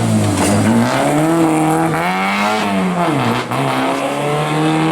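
Rally car engine revving hard under load, its pitch climbing and falling through the gears, with a brief lift of the throttle about three and a half seconds in.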